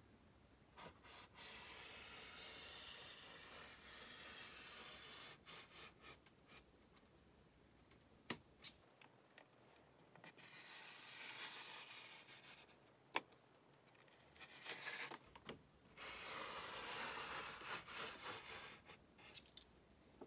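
Faint scraping of a hand-held blade scoring a large white sheet along an aluminium straightedge: three long strokes, with two sharp clicks between them.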